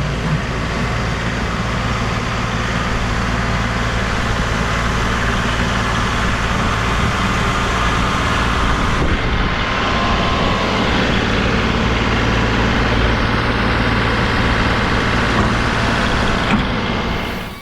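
Compact diesel tractor engine running steadily under load while plowing snow. The sound cuts off abruptly near the end.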